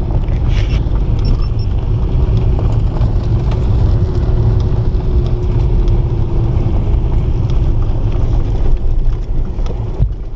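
Land Rover Freelander driving along a gravel track, heard from inside the cabin: the engine runs under load over a steady, heavy low rumble of tyres and road noise, with scattered light clicks and rattles.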